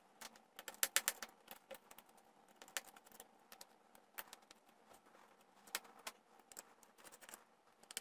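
Small screwdriver unscrewing the hard-drive bracket screws in a MacBook Pro's aluminium unibody: faint, irregular light clicks and ticks of the driver tip and screws against metal, in a few loose clusters.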